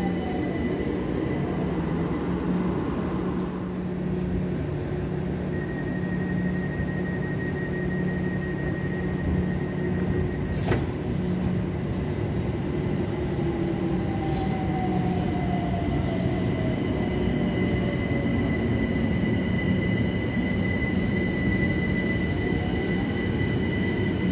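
Electric commuter train running at a station: a steady rumble of wheels on rail under steady whining tones. One whine slides down in pitch about halfway through and another shifts near the end. A single sharp click sounds about ten seconds in.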